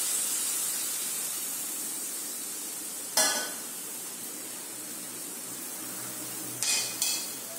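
Water sizzling in a hot steel wok of pumpkin-vine shoots just after it was poured in, a steady hiss that slowly dies down. A sharp metallic clink comes about three seconds in, and two more near the end.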